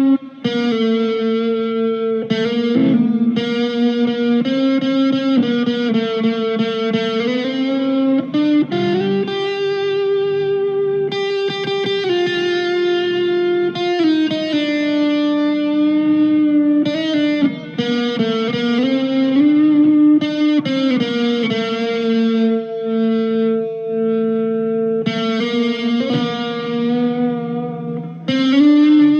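PRS 245 electric guitar played through a Blackstar ID Core V2 amplifier. Held chords ring out and change every one to three seconds, with a couple of brief breaks between them.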